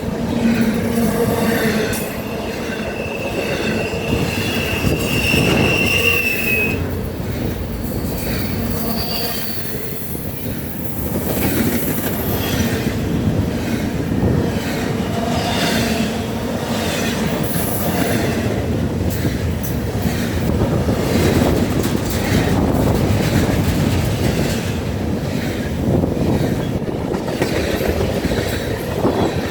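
Freight cars of a Norfolk Southern intermodal train rolling past on steel wheels: a steady rolling noise with knocks over the rail, and a thin, high steel-wheel squeal that holds for several seconds near the start.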